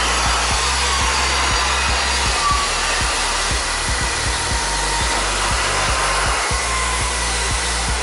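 CC300 diesel-hydraulic locomotive running at close range: a loud, steady rush of engine and cooling-fan noise over a low, even hum.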